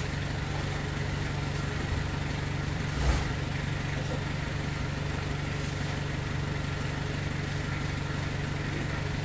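Small cargo truck's engine idling with a steady low hum, and a single dull thump about three seconds in as a large cardboard box is pushed onto the truck's cargo floor.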